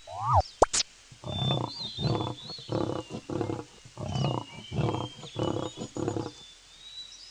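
Big cat giving a rasping call: about nine evenly spaced grunts, nearly two a second, like a saw cutting wood. Near the start there is a short rising-and-falling call, and faint high chirping runs underneath.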